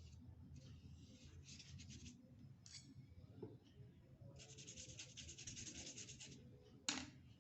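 Faint, rapid scratchy strokes of colouring on paper, in two runs of a second or two each. A sharp tap comes near the end.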